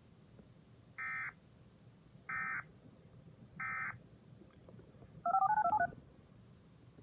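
Emergency Alert System end-of-message data tones: three short, identical bursts of buzzy digital screech, about 1.3 s apart, closing the tornado warning. About five seconds in comes a louder, quick run of two-tone beeps that sounds like touch-tone keypad dialing.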